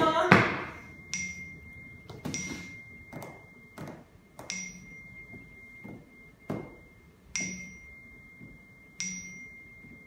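Slow, irregular light taps on a hard tabletop, about a dozen, each a second or more apart, the loudest right at the start. Several leave a thin high ringing tone that hangs on until the next tap.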